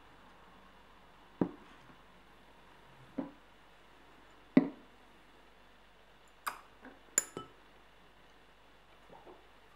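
A handful of short, sharp knocks and clicks at irregular intervals, about six in all with two close together past the middle, over a faint steady hiss.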